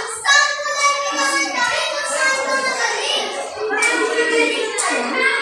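Children's voices singing a song together, the singing continuing with only short breaks.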